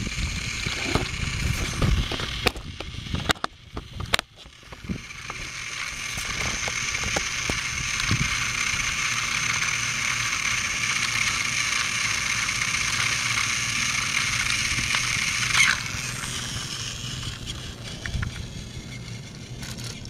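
Battery-powered Thomas toy train's small electric motor and plastic gears whirring steadily as it drives along plastic track, after a few clicks and knocks in the first seconds. The whir starts about five seconds in and fades after a click near the end.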